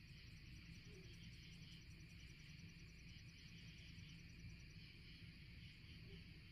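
Faint chorus of crickets chirping steadily, with one fast high trill that stops about three-quarters of the way through, over a low steady rumble.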